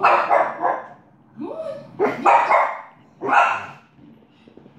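French bulldog barking, four or five short barks within about three and a half seconds, a couple rising in pitch at the start like yips.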